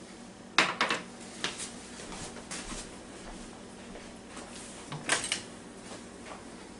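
Short clicks and clatters of a kitchen drawer and utensils, loudest just after the start and again about five seconds in, as a spatula is fetched, over a faint steady hiss.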